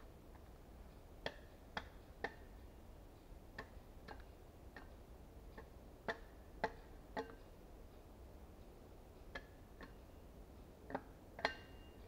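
Dry wood knocking and cracking in irregular sharp clicks, one to three at a time, as a dead standing pole is rocked back and forth; the loudest crack, near the end, has a brief ring to it.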